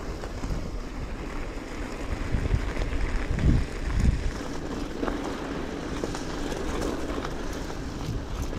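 Steady rolling rumble of a bicycle ride, with wind buffeting the microphone and two low thumps about three and a half and four seconds in.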